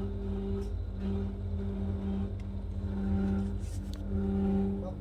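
Deep freezer's compressor running with a low rumble and a pitched hum that cuts out and comes back roughly once a second, the kind of noise taken for a freezer fault.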